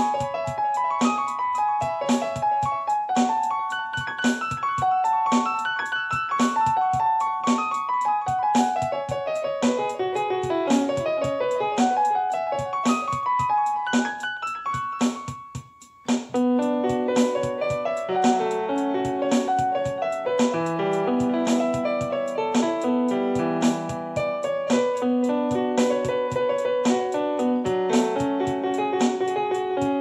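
Instrumental piano music over a steady beat: melodic runs in the upper-middle range. About halfway through the music dips out briefly, then comes back in with fuller, lower chords.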